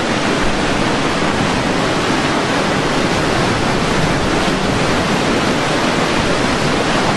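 Hurricane wind blowing hard against the microphone: a steady, loud rush of noise with no let-up.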